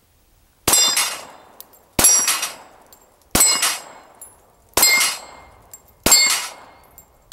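Smith & Wesson M&P40 pistol (.40 S&W) fired five times about 1.3 seconds apart, each shot followed at once by the ringing clang of an 8-inch steel plate being hit and knocked down. A sixth shot and clang come at the very end.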